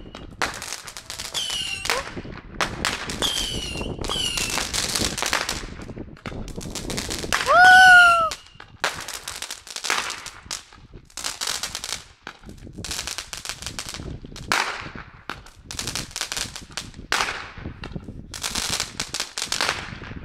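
Fireworks going off: a rapid, irregular series of bangs and crackles. A loud shrill whistling firework sounds about eight seconds in, its pitch sweeping up and then levelling off, and a few short falling whistles come in the first few seconds.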